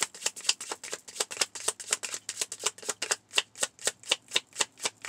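A deck of tarot cards being shuffled by hand, hand to hand, giving a steady, even run of quick card slaps at about five a second.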